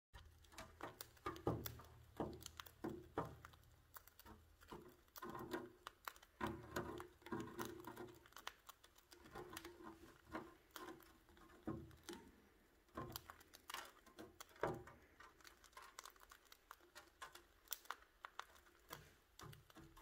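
Cockatiels pecking and cracking seeds with their beaks, at a seed stick and at loose seed on the cage floor. It comes as irregular sharp clicks and crunches, some in quick clusters.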